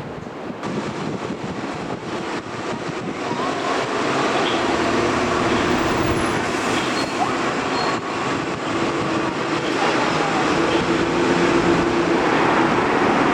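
Jet airliner engines, a steady rumble with a faint whine in it, growing steadily louder as the aircraft comes closer.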